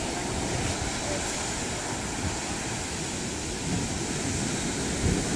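Heavy ocean surf pounding and churning against coral rock: a steady rushing wash of breaking water.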